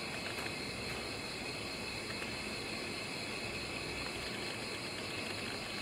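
Steady background hiss with a few constant high-pitched bands and no distinct events.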